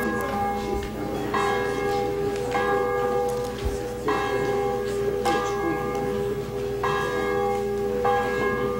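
Church bell tolling steadily, about seven strokes a little over a second apart, each stroke ringing on into the next, rung as the service begins.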